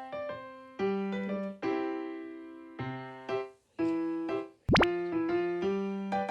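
Background music: a light, bouncy keyboard tune of separate plucky notes that each ring and fade. About four and a half seconds in there is a quick rising swoop sound effect.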